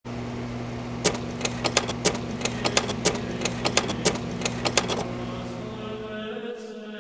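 Mechanical sound effect: rapid, irregular clicking and clattering over a steady electrical hum. The clicking stops about five seconds in, and wavering, warbling tones take over near the end.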